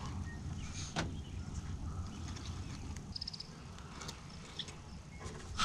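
Quiet river ambience: a low steady hum, with a single sharp click about a second in and a short, quick bird chirp a little past halfway.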